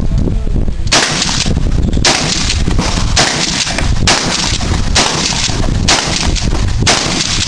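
Firearm shots fired at a steady pace, about one a second, seven in all. Each is a sharp crack followed by a short echoing tail.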